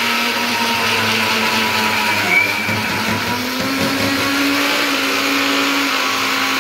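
Electric mixer grinder running steadily with a motor whine, the woman's hand holding the steel jar's lid down. The hum rises slightly in pitch a little past halfway through.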